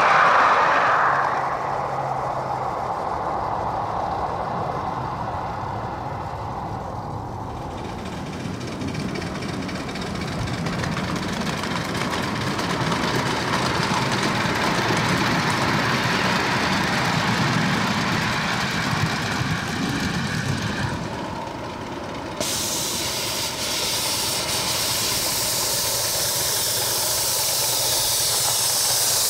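A 7.5-inch gauge live steam locomotive and its riding cars rolling along the track, wheels running on the rails. About three-quarters of the way in, a steady loud hiss of steam venting from the locomotive starts suddenly and continues.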